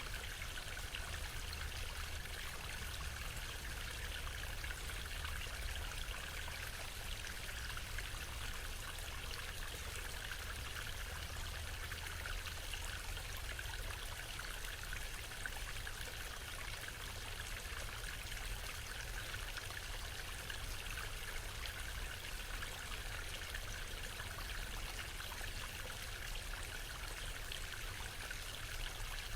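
Waterfall: a steady rush of falling water with a low rumble underneath.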